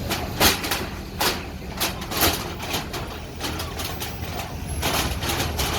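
A heavy engine running steadily under a string of sharp, irregularly spaced bangs and clatters, typical of demolition work.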